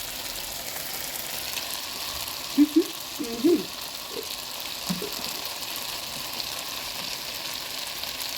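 Liver and tomatoes frying in a pan with a steady sizzle. A few short voice-like murmurs come a third of the way in.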